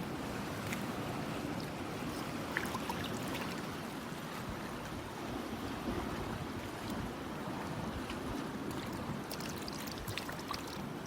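Steady rushing of seawater and wind with a fluctuating low rumble, and a few faint taps and clicks scattered through it.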